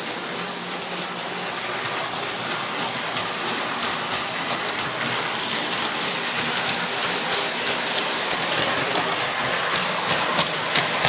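O scale model train running on the layout track: a steady rush of wheels on metal rail with many sharp clicks over the rail joints, growing louder and busier from about halfway through as the train comes nearer.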